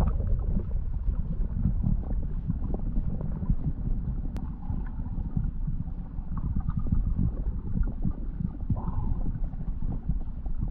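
Wind buffeting the microphone, heard as a steady low rumble, with one faint click about four seconds in.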